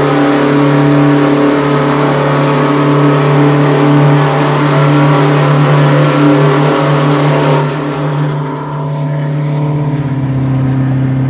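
Straight-piped Detroit Diesel 8V71, a two-stroke V8 diesel in an MCI coach, running hard at highway speed inside a tunnel, heard from the driver's seat. About two-thirds of the way through, the sound turns duller and a little lower in pitch.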